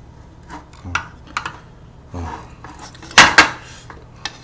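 A wooden spoon knocks and scrapes against a large metal pan of stir-fried fire noodles. There are several short clacks, and the loudest come as a close pair of clanks about three seconds in.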